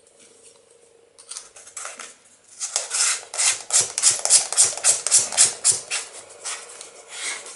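Threaded end cap of a SENA Prism tube camera being screwed onto the camera body by hand: a rapid run of clicks and scraping from the threads and fingers, starting about a second in and becoming dense and loud from about three seconds.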